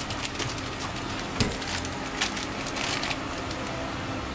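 Mushrooms sizzling and crackling in a frying pan on an induction hob as the tamari cooks off, over a low steady hum, with a couple of light knocks.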